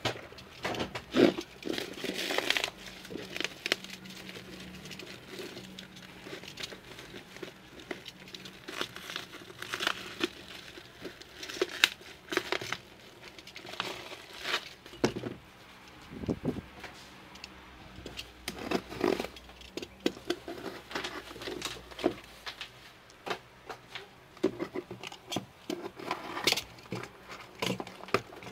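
Plastic courier mailer being torn open and its wrapping crinkled by hand: irregular rustling, tearing and sharp little clicks and knocks. Near the end a cardboard box is handled.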